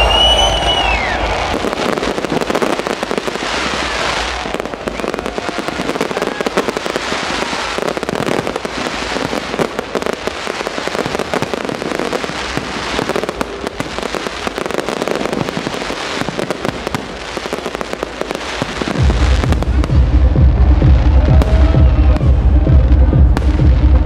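A fireworks display crackling and banging in a dense, continuous barrage. About 19 seconds in, loud electronic dance music with a steady deep bass beat starts over it.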